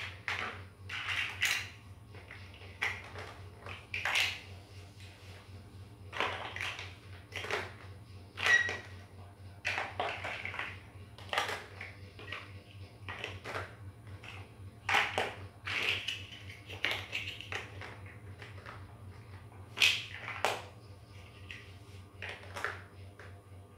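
Hard plastic building bricks clicking and clattering as they are picked from a loose pile and pressed onto a model, in irregular sharp clicks, over a low steady hum.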